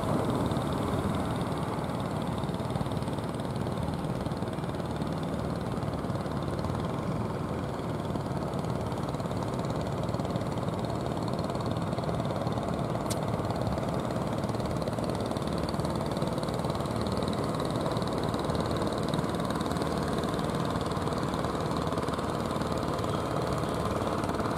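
Diesel engines of wooden fishing boats running steadily under way, a continuous low drone with no change in pitch. A single sharp click sounds about halfway through.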